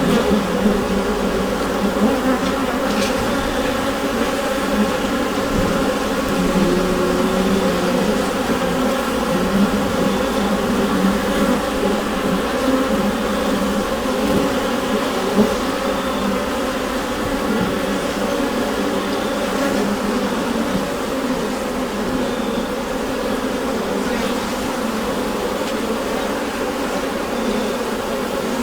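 Honeybees humming en masse inside a hive: a dense, steady drone of many layered tones from thousands of wingbeats.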